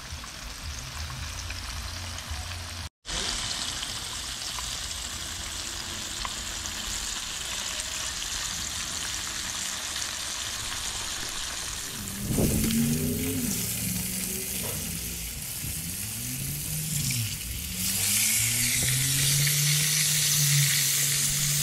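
Floured pieces of aku (skipjack tuna) shallow-frying in hot oil in a pan, a steady sizzle that grows louder near the end.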